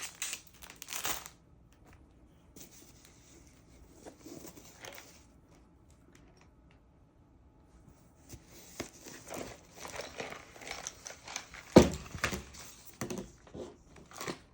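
Diamond painting kit packaging crinkling and rustling as it is unwrapped and handled, in bursts with quiet gaps, and one sharp knock near the end.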